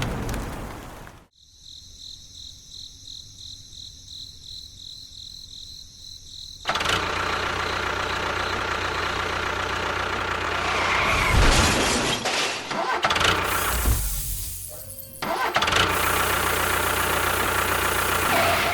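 Small motor running in several abruptly cut segments: first a quieter high, evenly pulsing whine, then a louder, dense running sound with a few knocks around the middle.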